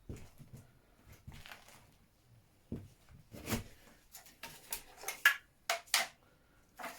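Scattered light clicks and knocks of metal parts and tools being handled, with two sharper clacks late on.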